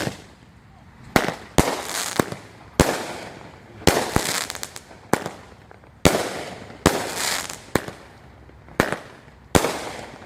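Dominator "Break Out" 200 gram consumer firework cake firing: a rapid string of sharp bangs, roughly one every half second to second, each with a short crackling tail. The shots carry no whistles.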